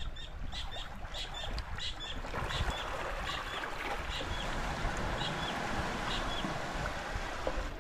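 A small bird calling in a quick series of short, high chirps, each dipping in pitch, that thin out and stop about six seconds in. Under it is a low rumble of wind on the microphone, and a steady hiss that swells about two seconds in.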